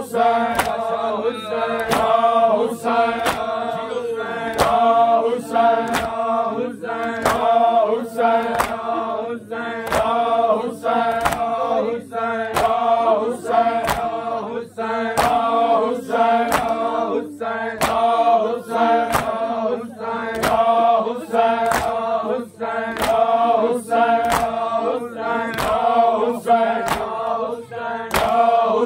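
Men's voices chanting a noha, a Shia mourning lament for Imam Hasan, over an even beat of sharp slaps about twice a second, the rhythmic chest-beating (matam) of a mourning group.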